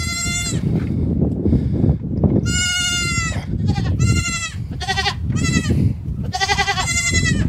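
Goats bleating: about six high-pitched, quavering calls, some short and some held for nearly a second.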